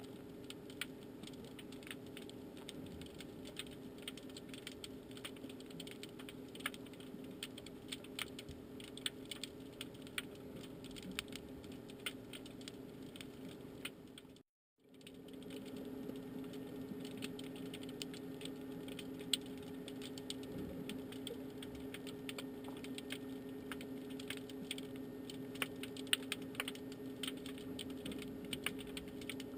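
Underwater sound picked up by a submerged camera: a dense, irregular crackle of sharp clicks over a steady low hum, faint throughout. The sound drops out for a moment about halfway through.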